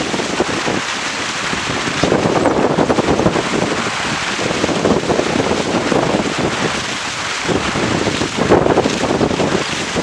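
Heavy wind buffeting a boat-mounted camera microphone over the rush and splash of water along the hull of a Weta trimaran sailing fast in strong wind. The noise swells and eases every second or two.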